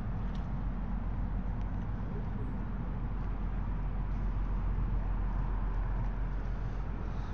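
Steady outdoor background: a low, fluttering rumble with a light hiss over it, and no distinct events.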